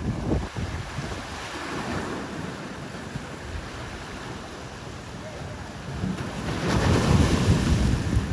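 Ocean surf rushing with wind blowing across the microphone, swelling louder about six and a half seconds in.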